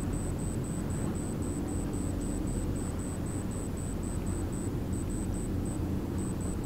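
Deep, steady rumble of a large car ferry's engines as the ship gets under way. A faint high-pitched pulse repeats about four times a second over it, pausing briefly in the middle.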